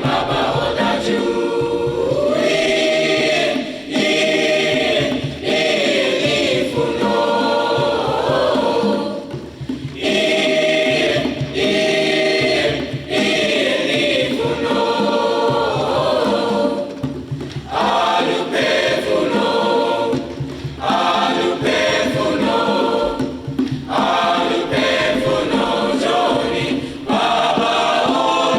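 A choir singing in sustained phrases of a few seconds each, with short breaks between them.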